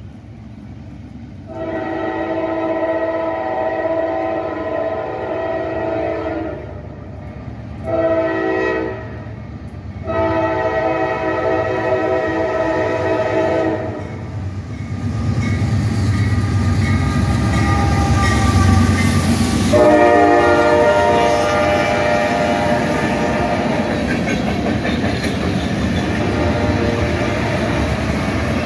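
A Norfolk Southern diesel freight locomotive's air horn sounds long, short, long as the train approaches, then once more about twenty seconds in as it goes by. The rumble of the locomotive and the clatter of tank car wheels on the rails grow loud and run on as the train passes.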